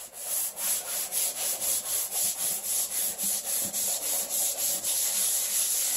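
A scouring pad on a handled holder, scrubbed hard back and forth over a wet stainless-steel wood cook stove top: a steady rhythmic rubbing of about four strokes a second.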